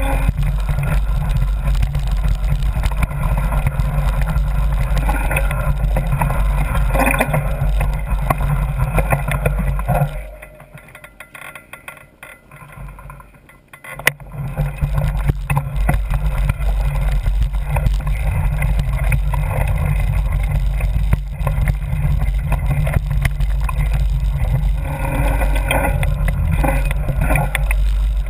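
Steady rumble of wind on the microphone and rattle from riding a mountain bike over a rough dirt trail. It drops away for about four seconds in the middle, then comes back with a sharp knock.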